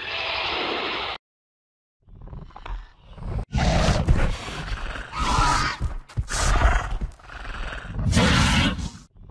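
Several loud dinosaur roar sound effects, rough growling calls one after another with a deep rumble beneath them, beginning about two seconds in after a short silent break.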